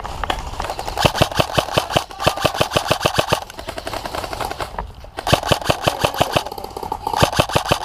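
Airsoft rifle firing on full auto in two long bursts of rapid, evenly spaced shots, each lasting about two and a half seconds.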